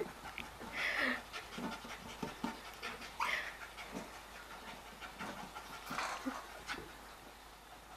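A corgi panting as it plays, with a few louder breaths about one, three and six seconds in and faint clicks and knocks between them.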